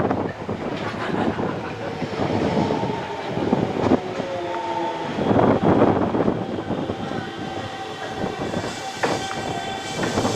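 Keisei Line electric train running into the station, its wheels clattering over rail joints. A short pitched tone sounds about four seconds in, and a steady high whine sets in over the last couple of seconds.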